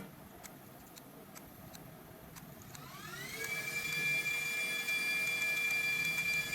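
A small electric motor spins up with a rising whine about three seconds in, then runs at a steady speed. A few faint clicks come before it.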